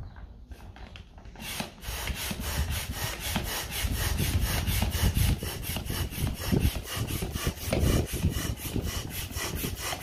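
The inflatable boat's supplied hand pump being worked up and down in a steady rhythm, each stroke a rushing, rubbing sound as air is forced through the hose into one of the boat's chambers. The pumping starts about a second and a half in.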